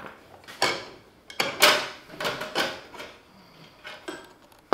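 Steel dado blade and chipper pieces clinking and scraping as they are fitted onto a table saw's arbor: about half a dozen sharp metallic clinks with short ringing, irregularly spaced.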